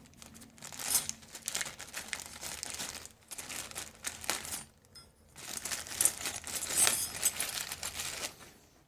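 Crinkling and rustling of plastic packaging being handled and torn open, most likely the wrapper of new brake slider hardware. It comes in two irregular spells with a short pause about five seconds in.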